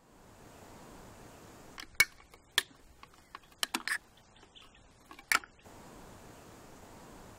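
Two aluminium juice cans opened by their pull tabs: a series of sharp clicks and cracks, the loudest about two seconds in and another short crack about five seconds in.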